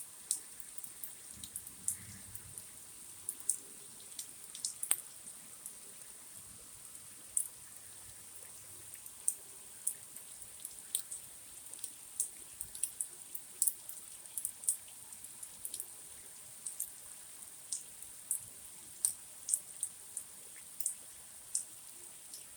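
Heavy rain falling: a steady high hiss with irregular sharp drip and drop ticks, several a second.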